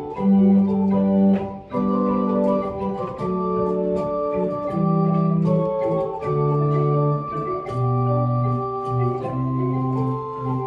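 Historic 1817 Thois pipe organ playing a chaconne: sustained bass notes that change about every second or so, under several moving upper voices.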